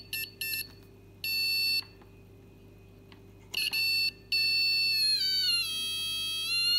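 Piezo buzzer of a homemade 555-timer Morse practice oscillator sounding keyed beeps of different lengths, then one long held tone whose pitch slides steadily down as a knob on the board is turned. The tone is buzzy rather than a pure whistle, because the 555's square wave drives the piezo without the LC filter that would round it toward a sine wave.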